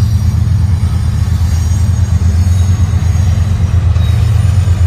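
Steady low rumble of the diesel locomotives of an approaching CN freight train, led by a GE ES44AC with its V12 engine, as it rolls onto an overpass.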